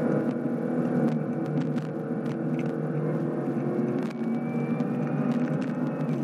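Cadillac CTS-V's supercharged 6.2-litre V8 at full throttle, pulling hard through the gears, heard from inside the cabin, with a brief dip in the engine note about four seconds in as it shifts from fourth to fifth. A loose piece of the camera mount rattles and clicks throughout.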